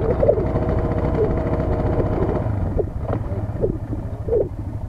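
Suzuki KingQuad ATV engine running low and steady while the quad sits in water, with indistinct voices now and then.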